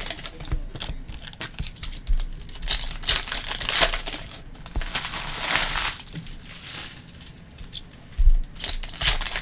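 Foil trading-card pack wrappers crinkling and tearing as they are ripped open by hand, in repeated bursts. A short low thump about eight seconds in.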